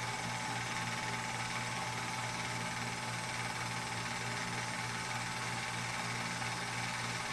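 Film projector running: a steady mechanical whirr with a low hum.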